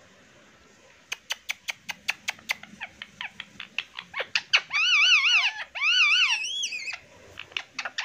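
Indian ringneck parrot sounds: a run of sharp clicks, about three a second, then from about four seconds in two spells of warbling, wavering chatter, the second ending in a higher rising-and-falling whistle.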